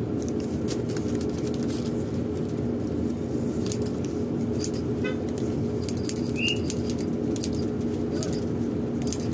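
Cabin of a King Long XMQ6871CY bus on the move: a steady engine and road drone with a low, even hum, under frequent light clicks and rattles. A short chirp comes about six and a half seconds in.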